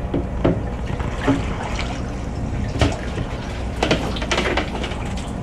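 Water sloshing and splashing in a boat's fish hold as a landing net scoops a large fish out, with several sharp knocks scattered through and water dripping as the net lifts clear, over a low steady hum.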